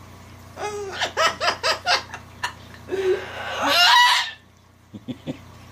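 Cockatoo mimicking human laughter: a quick run of about six 'ha' notes, then a longer, louder call near the middle.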